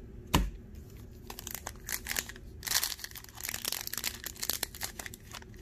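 Foil Pokémon booster pack being handled and crinkled in the hands, a dense crackle of small rustles. There is a single sharp tap about a third of a second in.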